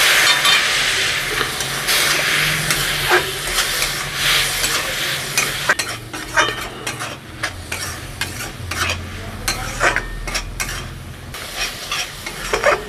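A wet onion, tomato and spice masala sizzling in hot mustard oil in a kadai, being stir-fried down with a spatula just after a splash of water went in. The sizzle is strong at first and eases after about six seconds, while quick spatula strokes click and scrape against the pan more often in the second half.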